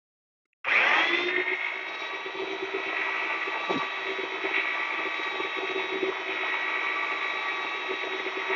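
Electric paddle mixer (drill-type) starting under a second in and running steadily, churning a bucket of porcelain-tile adhesive paste to a stiffer mix.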